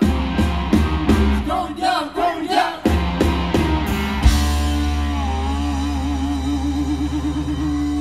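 Live rock band with drums, guitars and group vocals playing a song. A loud hit comes about four seconds in, and after it a chord rings out under a wavering held note.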